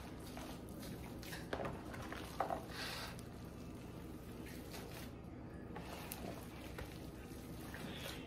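Hands kneading raw meatloaf mix of ground beef, eggs and breadcrumbs in a plastic bowl: faint wet squishing, with a few soft knocks about two seconds in, over a low steady hum.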